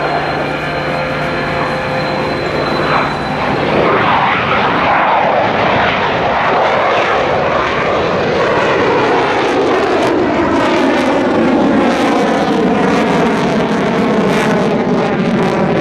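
Mitsubishi F-2 fighter's single turbofan jet engine running loud as the jet flies past. The noise swells about four seconds in, and its tone sweeps downward as it passes.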